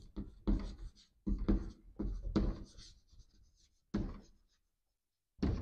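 Chalk scratching on a chalkboard as a word is written, in a run of short strokes with a pause of about a second before the last one.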